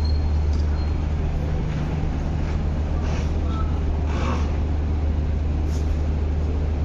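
Steady low engine drone, even and unchanging, with a few faint brief sounds over it about halfway through.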